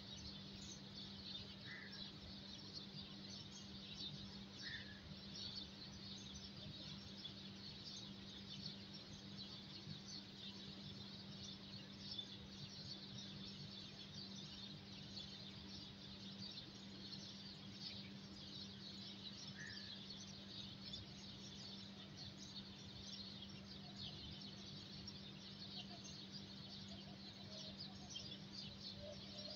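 Faint chorus of many small birds chirping continuously, with a steady low hum underneath and a few short, lower call notes.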